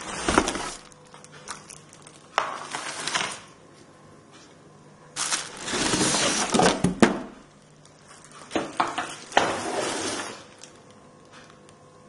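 Plastic wrapping crinkling and cardboard rustling as a vacuum cleaner is handled in and out of its box, in four crackly bursts of about one to two seconds each with sharp clicks among them.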